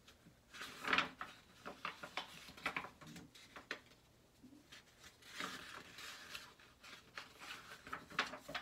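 Pages of a paper planner being leafed through by hand: a string of short rustles and flaps of paper.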